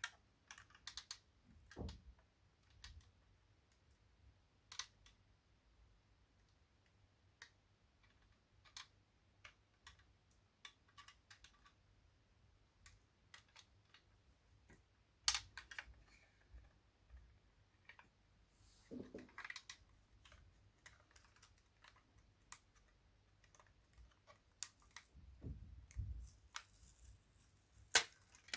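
Scattered small clicks, taps and light knocks of hands handling a plastic-and-metal diecast model car and its packaging, with two sharper clicks about halfway through and near the end.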